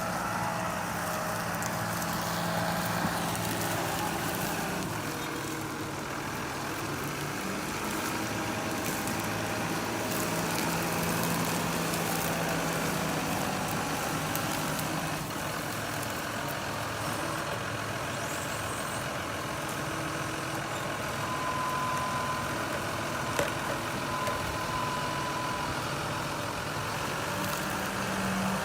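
Engine of a heavy tree-pulling machine running steadily, its low note stepping up and down as it works. A faint high whine comes in past the middle, and a single sharp crack sounds near the end.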